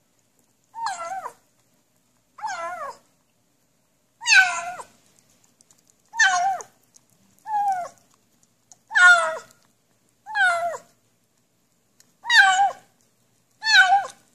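Tabby kitten meowing while licking food from a spoon: about nine short calls, each about half a second long and bending in pitch, roughly one every second and a half.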